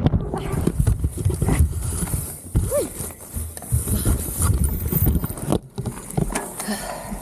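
Irregular knocking, rattling and rustling as a fallen mountain bike is handled in dry grass, picked up through its loosely mounted handlebar camera.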